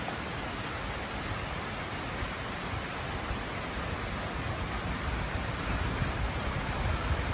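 Steady rain falling on leaves and wet ground, an even hiss. A low, fluttering rumble of wind on the microphone grows stronger near the end.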